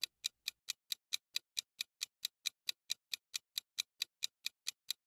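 Quiz countdown-timer sound effect: even clock-like ticking, about four to five ticks a second.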